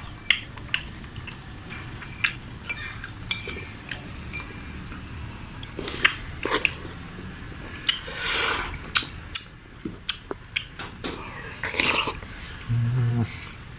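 Spoon clinking and scraping against a bowl during eating: scattered sharp clinks, with two short scraping sounds about two-thirds of the way through.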